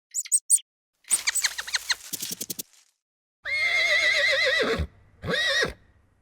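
A horse whinnying: a long wavering call about halfway through that falls in pitch at its end, then a shorter falling call. Before it come a few brief high chirps and a rapid run of short pulsed calls, each cut off sharply.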